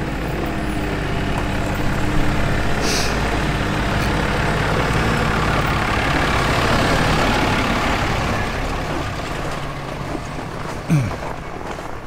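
A large truck's engine running close by, its noise swelling and then fading away after about eight seconds. There is a short hiss of air brakes about three seconds in.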